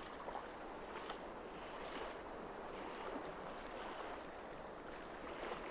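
Steady rush of shallow river current flowing over riffles.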